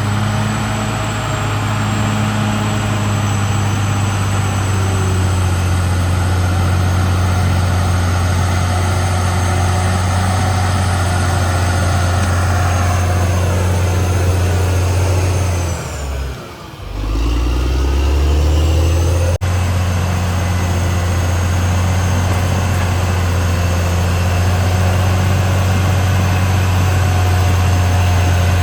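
Caterpillar D6R XL bulldozer's diesel engine running steadily under load. About 13 s in its pitch sinks, the sound drops away briefly around 16 s, and then it picks back up and runs steady again.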